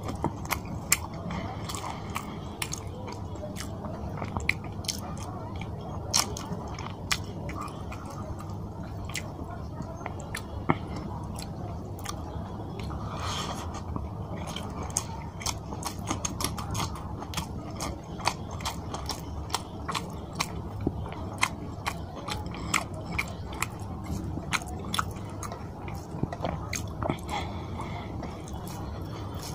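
Close-miked chewing of rice and fish curry eaten by hand: wet mouth noises with many sharp lip smacks and clicks throughout.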